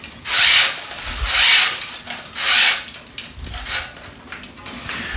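Tennis string being pulled by hand through a racket's main strings, rubbing against them in three long rasping swishes about a second apart, then fainter scraping and small clicks.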